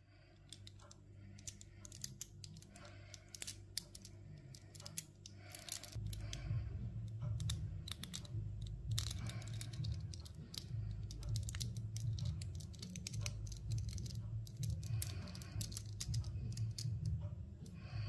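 Windcharger minibot toy being transformed by hand: scattered small clicks and snaps of its plastic and metal parts moving, over a low rumble that grows louder about a third of the way in.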